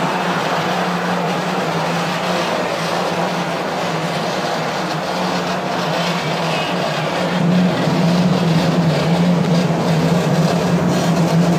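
Industrial washer extractor machinery running: a steady motor hum over a rushing noise, the hum growing stronger about seven and a half seconds in.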